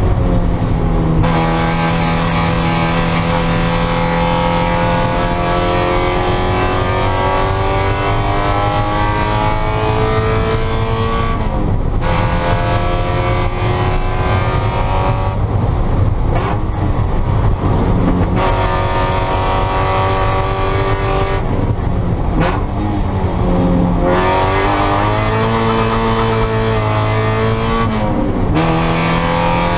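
Spec Miata race car's four-cylinder engine at high revs, its pitch climbing and falling as it is driven hard, with brief drops in the note several times as the driver lifts or shifts.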